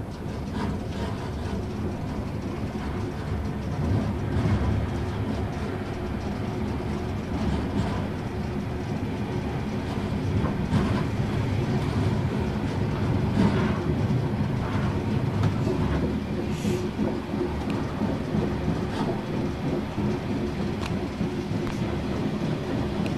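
Caledonian Sleeper train running along the track, heard from the front: a steady rumble of engine and wheels with a low hum, and scattered clicks of the wheels over the rails. A brief hiss comes about two-thirds of the way in.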